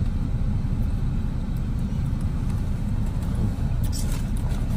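Steady low rumble of a car heard from inside the cabin, with a brief crinkle of a paper food wrapper about four seconds in.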